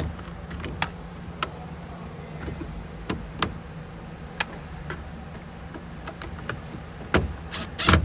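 A few light clicks and knocks of plastic parts being handled against a low steady hum, then near the end a yellow DeWalt cordless drill-driver runs in short loud bursts as it drives a screw into the fridge's lower hinge bracket.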